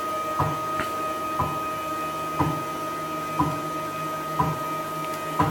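Stepper motors of a desktop four-axis CNC router whining with a steady tone as the spindle carriage travels along its axis, with a short knock about once a second.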